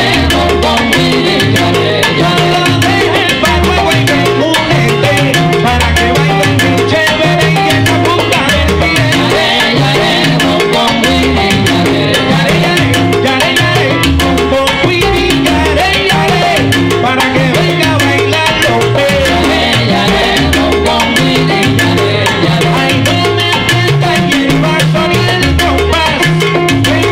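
Live salsa big band playing a steady salsa groove, with Latin percussion (bongos, timbales, congas), piano, bass and a horn section.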